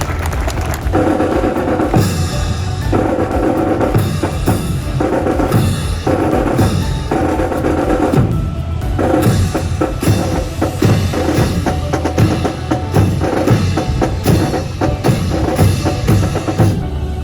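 Military student brass band playing a march, snare and bass drums beating a steady rhythm under repeated brass chords.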